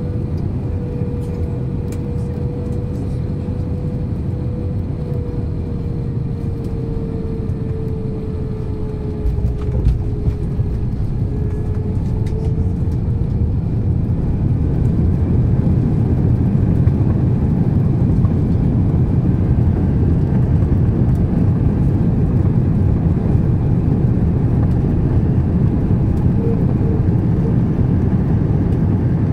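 Cabin noise of an Airbus A321-200 landing: a steady engine whine that slowly sinks in pitch on the flare, a thump about nine or ten seconds in as the main gear touches down, then a louder low rumble as the airliner rolls out on the runway with its spoilers up.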